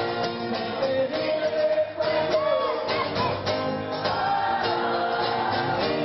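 Two male voices singing a song over two strummed acoustic guitars, the melody held on long, wavering notes.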